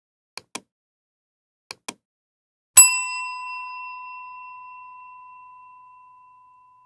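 Two pairs of faint clicks, then a single bell-like ding about three seconds in: a clear ringing tone that fades slowly away over about four seconds.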